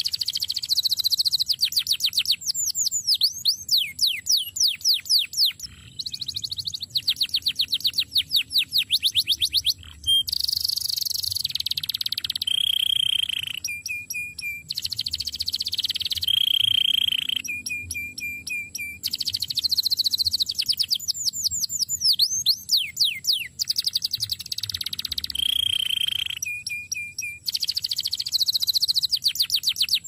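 Male domestic canary in full song: a long, varied phrase of fast trills made of rapid repeated falling notes, alternating with held whistled notes, with only short breaks.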